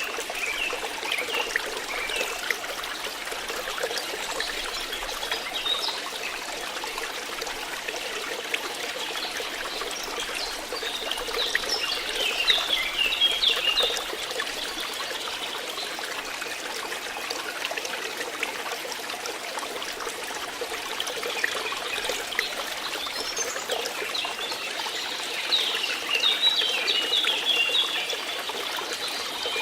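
Water trickling and flowing steadily, with birds chirping in short bursts about a third of the way in and again near the end.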